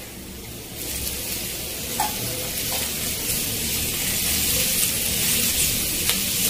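Chopped leeks sizzling in hot oil in a metal wok as they are tipped in and stirred with a metal spoon. The sizzle starts about a second in, with a couple of light clicks of the spoon against the pan.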